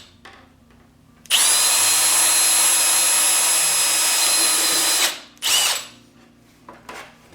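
Power drill with a small bit spinning up and running for about four seconds with a steady whine, then a brief second burst: drilling stop holes at the ends of cracks in a plastic snowmobile windshield to keep the cracks from spreading.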